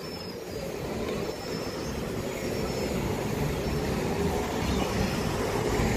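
Steady street noise of road traffic, a rumble that slowly grows louder.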